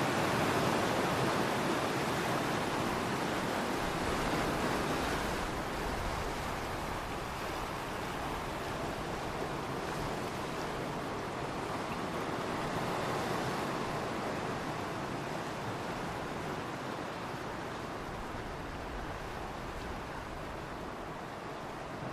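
Ocean waves washing onto a shore in a steady rush of surf that swells and ebbs, loudest in the first few seconds and again about halfway, then gradually getting quieter.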